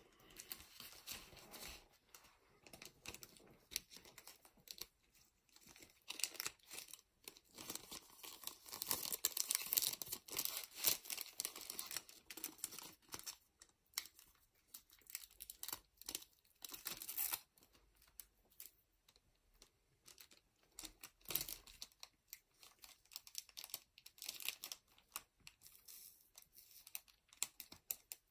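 Clear plastic bags and foil-wrapped booster packs crinkling and rustling as they are handled, with packs being slipped into the bags. The rustling comes in irregular bursts and is loudest about nine to eleven seconds in and again around seventeen seconds.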